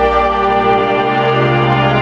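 Background music of slow, held chords.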